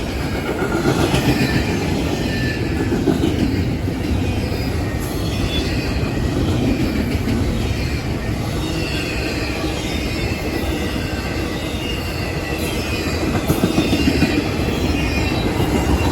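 Cars of a long intermodal freight train rolling past at close range: a steady rumble of steel wheels on rail, with faint wavering wheel squeal over it.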